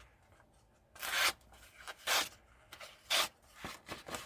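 Multi-tool knife blade slicing through a sheet of paper in several short cutting strokes, about a second apart. The cut sounds come from a slightly rough, toothy factory edge.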